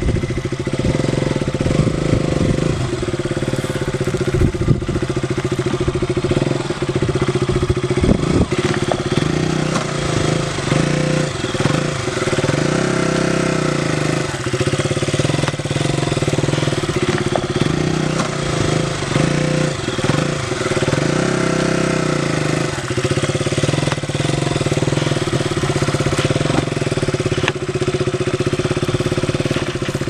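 KTM RC 200's single-cylinder engine on its stock exhaust, running at low revs as the bike crawls over rocky ground, with the revs swelling up and back down a few times midway. Occasional short knocks sound over it.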